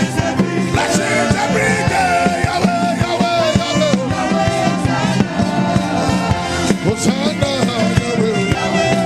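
Upbeat praise worship music with a steady, driving drum beat and a wavering melodic lead line over sustained chords.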